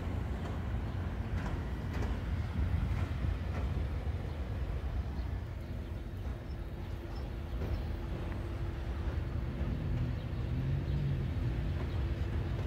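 EP07 3 kV DC electric locomotive running light at low speed while shunting: a steady low rumble, joined about halfway by a steady hum.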